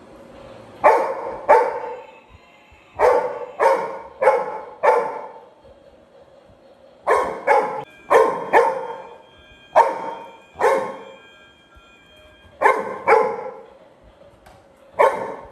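Labrador retriever barking repeatedly at a moving toy gear train: about fifteen sharp barks in bunches of two to four, with short pauses between.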